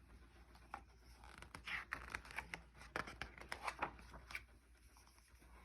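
Faint paper rustling and scraping, several short strokes in a row: the pages of a picture book being handled and turned.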